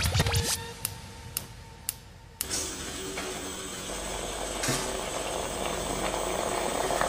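A few sharp clicks, then from about two and a half seconds in a steady hiss that slowly grows: a stovetop moka pot on the burner as its coffee bubbles up into the upper chamber.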